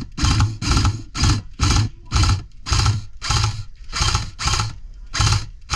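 A regular run of short rustling thuds, about three a second, with an even rhythm.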